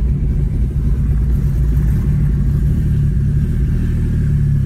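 Turbocharged car engine running at a steady, low pace while the car drives along, heard from inside the cabin as a low drone with road rumble. The car is untuned.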